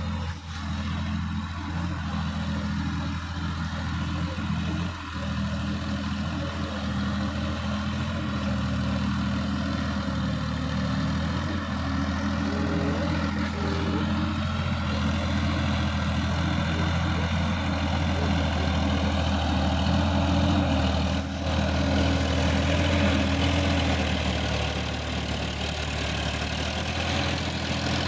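Sonalika DI-50 RX tractor's diesel engine running steadily under load while driving a rotary tiller through dry soil. It grows louder over the first twenty seconds as the tractor comes closer.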